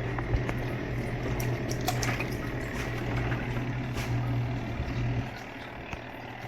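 Portable twin-tub washing machine's wash motor running with water churning in the tub, then stopping about five seconds in, as in a run-and-pause agitation cycle.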